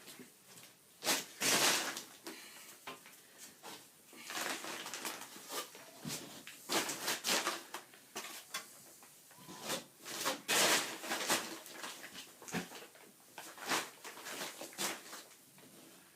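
Plastering trowel scraping and spreading stiffening plaster mix into a hole in a wall, in irregular strokes of a second or two each.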